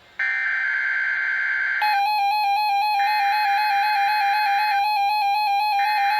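NOAA Weather Radio Required Weekly Test, sending its SAME digital header as bursts of buzzing two-pitch data tones, each a little under two seconds long with about a second between them; the third burst begins near the end. A steady tone sets in about two seconds in and runs on under the bursts and through the gaps.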